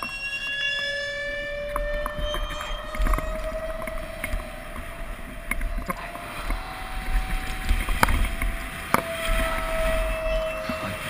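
Mountain bike coasting fast down a dirt trail: the rear freewheel hub buzzes in a steady tone that rises and falls with speed, over a low wind rumble on the helmet camera. Tyres, chain and frame rattle over the bumps, with two sharp knocks late on.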